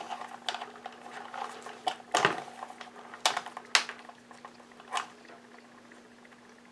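Scattered light clicks and taps of small plastic wire nuts and wires being handled and twisted together inside an opened vacuum cleaner housing, with a faint steady hum underneath.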